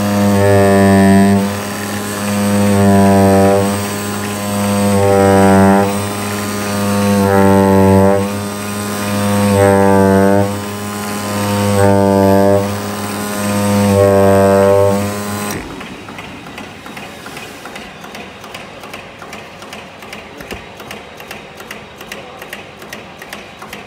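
CNC oscillating-knife cutting machine running while it cuts 40 mm hard EVA foam: a loud steady drone whose upper tones swell about every two seconds as the cutting head moves. About fifteen seconds in it stops abruptly, and a much quieter, fast regular ticking follows.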